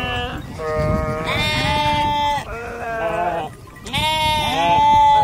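Several sheep bleating, calls about a second long each, some overlapping at different pitches, with a short lull about three and a half seconds in and the loudest bleat near the end.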